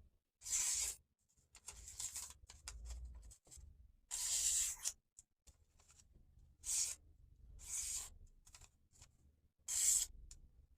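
A sharpened knife blade drawn in separate strokes across a surface, each a short scraping hiss, about five louder ones with fainter scratches between, at an uneven pace.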